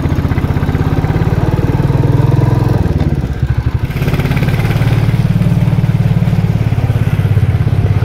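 Royal Enfield single-cylinder motorcycle engine running while riding, its exhaust pulsing steadily; it goes briefly quieter about three seconds in, then picks up again.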